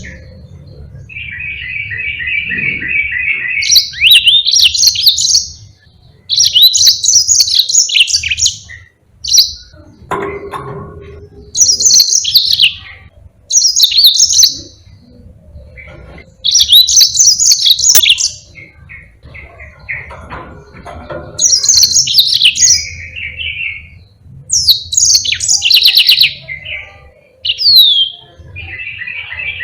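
Yellow-fronted canary (Mozambique canary) singing in repeated phrases of fast, high warbled notes and buzzy rolled trills, with short pauses between phrases.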